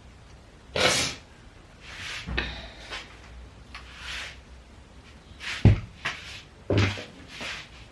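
A series of knocks, bumps and rustles from objects being handled and moved about, with a sharp thud about two-thirds of the way through.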